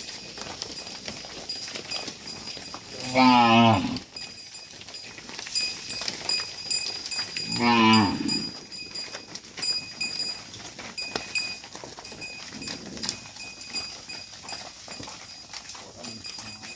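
Cattle mooing: two loud moos, about three seconds and about eight seconds in, each lasting about a second, with scattered clicks and knocks between them.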